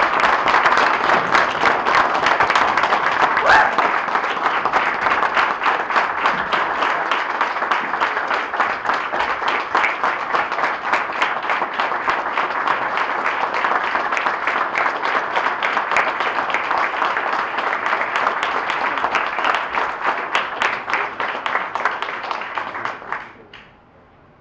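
Audience applauding at length, a dense, steady clapping that stops near the end.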